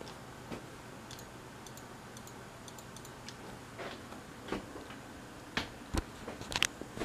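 Irregular light clicks and taps over a steady low hum. They come more often and louder in the second half, with one sharper knock about six seconds in.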